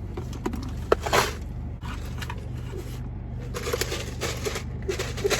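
Close-up eating sounds: food being chewed and crunched in short noisy bursts, with a sharp click about a second in, over a steady low hum.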